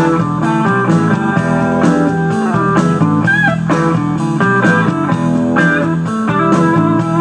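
Blues-rock backing track in an instrumental break: guitar playing pitch-bending lead lines over bass and a steady drum beat.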